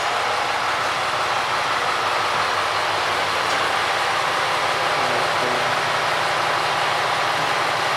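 Kitakami Line diesel train running steadily: an even rushing noise over a constant low engine hum.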